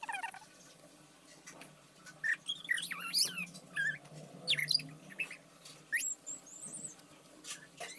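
Birds chirping: a run of short, high chirps and quick whistled pitch sweeps, heaviest in the middle of the stretch, over a faint steady hum.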